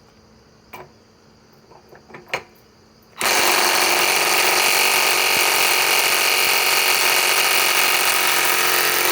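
DeWalt XR DCF891 cordless impact wrench hammering nonstop on a large, tight nut, starting about three seconds in after a few light handling clicks.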